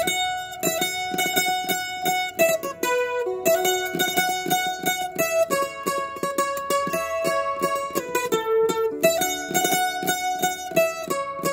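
Acoustic guitar-type string instrument playing a single-note melody, each note picked rapidly over and over in a tremolo. This is the melody of the song's vocal line played on the strings.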